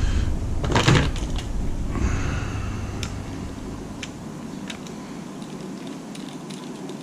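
Hand-disassembly noise: a scrape about a second in, then scattered light clicks of a screwdriver and plastic console casing being handled.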